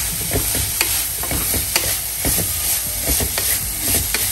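Crushed coconut, green chilli and ginger mixture sizzling steadily in hot coconut oil in a clay pot, stirred and scraped with a spatula in frequent short strokes against the pot: the masala being fried until its raw smell goes.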